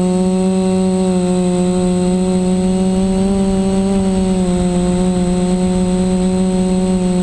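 Reptile Aphid 450 quadcopter's brushless DJI 920KV motors and propellers whining steadily in flight, heard close up through the onboard camera. The pitch rises slightly around the middle.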